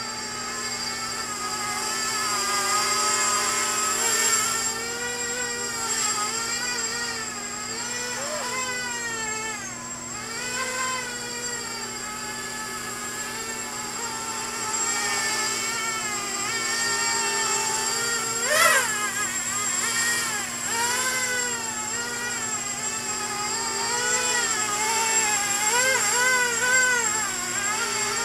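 Small Y4 multirotor's Sunnysky 2204 2300 kV brushless motors and 5030 propellers whining in flight, the pitch wavering up and down constantly as the throttle and attitude change on its untuned maiden flight. About two-thirds of the way in the whine spikes sharply upward for a moment, then drops back.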